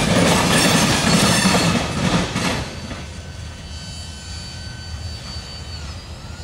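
Freight train of tank cars rolling away on the rails, its wheel rumble and clatter loud at first, then dropping off sharply about two and a half seconds in as the last car moves away. A faint, thin, high wheel squeal lingers afterwards as the train recedes.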